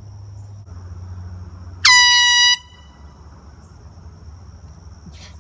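One loud blast of an air horn, under a second long, about two seconds in: a shrill steady tone that jumps up in pitch at the onset, then cuts off.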